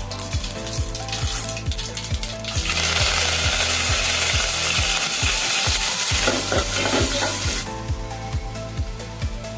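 Food sizzling in hot oil in a cooking pan, a loud steady frying hiss that starts about three seconds in and stops after about five seconds. Background music with a steady beat plays before and after it.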